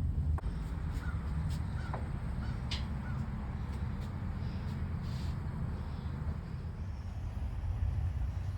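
Steady low rumble, with a few short bird calls over it in the first few seconds.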